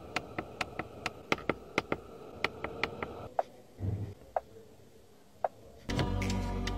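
A run of sharp ticking clicks, about four or five a second at first, thinning to a few scattered clicks after about three seconds. Music comes in near the end.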